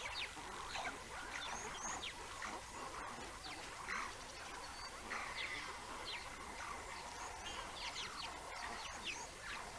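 Many short, high chirping calls from wild animals, scattered irregularly, over a faint steady background hum.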